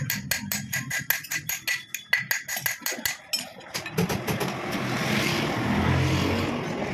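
Rapid, evenly spaced metallic clicks with a light ring, about six a second, that stop about three and a half seconds in. A steady motor-vehicle noise follows.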